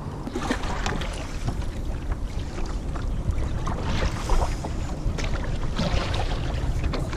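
Wind buffeting the microphone with a steady low rumble, while water laps and splashes against a kayak's hull in short irregular bursts.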